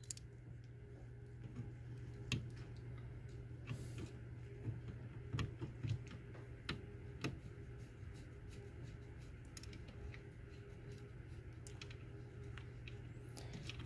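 Faint scattered clicks and taps of a small plastic fan and screwdriver being handled while the fan is fitted into a 3D-printed hotend shroud, over a steady low hum.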